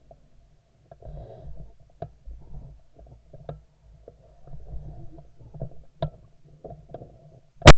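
Muffled low rumbling and irregular light knocks as the hunter moves through the field, then a single very loud shotgun blast near the end from a Franchi Affinity 3 shotgun, with a short ringing tail.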